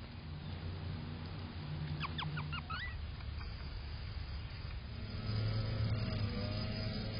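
Outdoor background sound: a steady low rumble, a brief run of bird chirps about two seconds in, and a louder low hum from about five seconds in.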